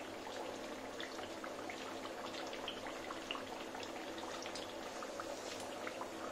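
Chandrakala pastries deep-frying in oil in a steel kadhai: the oil bubbles gently in a steady soft sizzle with many small scattered crackles, over a faint steady hum.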